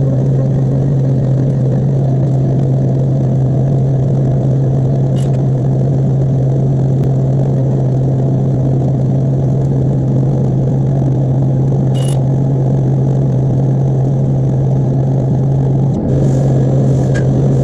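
Mori Seiki CNC machine running steadily: a constant low hum over a dense rush of noise, with a couple of brief sharp ticks and a short dip near the end.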